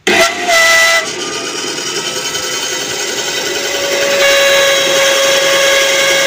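Mini bandsaw switched on and running with a harsh, rough noise: a loud whine that starts suddenly, with a steady tone coming through from about four seconds in. This very harsh running sound is the fault the machine has before its adjustment.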